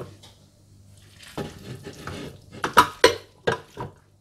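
Utensils clinking and scraping against a bowl as raw beef mince is put into a food chopper, with a handful of sharp knocks in the second half.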